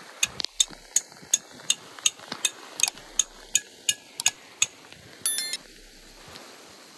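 Sharp metallic clicks in a steady rhythm, about three a second for roughly four seconds, from a hand tool working metal while the stove flue is being secured. A short, loud, high-pitched squeal follows near the end.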